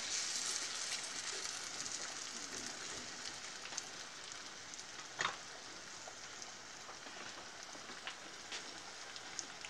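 Diced raw potatoes sizzling in hot oil in a nonstick frying pan, stirred with a silicone spatula; the sizzle is a steady hiss that slowly grows quieter, with a single sharp click about five seconds in.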